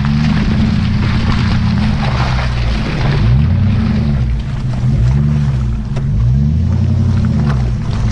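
Jeep Grand Cherokee's 4.7-litre V8 through a Flowmaster exhaust, revving up and down several times as it drives through mud, over a rushing noise of tyres churning mud and water.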